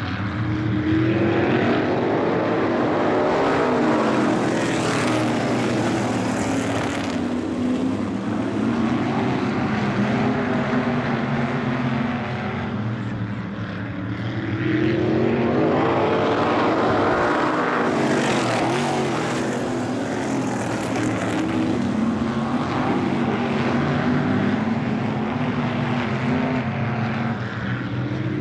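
A pack of 360 winged sprint cars racing on an asphalt oval, their 360-cubic-inch V8 engines running at full throttle. The sound swells twice as the field comes past, rising in pitch as the cars accelerate and falling away as they go by.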